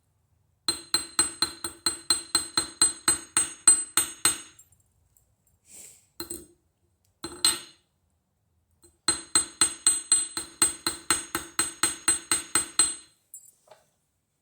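Small hammer striking a fine silver ring on a steel anvil, with ringing metal blows. They come in two quick runs of about five a second, with a few single blows between, as the hump is knocked out of the ring.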